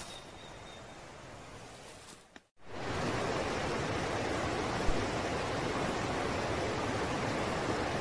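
Faint steady forest ambience that cuts out about two and a half seconds in, followed by the steady rushing of a shallow stream running over rocks.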